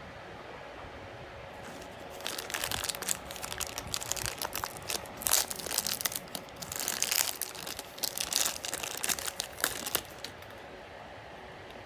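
Packaging being handled and unwrapped, crinkling and rustling in irregular bursts that start about two seconds in and stop near ten seconds.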